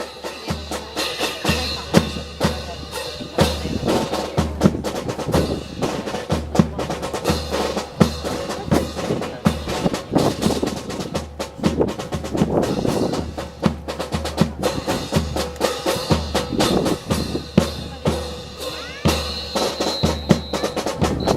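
Marching band drums, snare and bass drum, playing a steady marching beat, with many sharp snare strokes over regular bass drum thuds.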